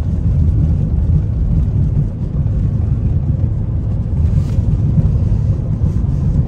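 Steady low rumble of a car on the move, road and engine noise heard from inside the cabin.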